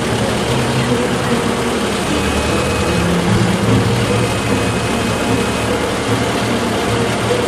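Engine of the green lifting machine holding the car over the tank, running steadily.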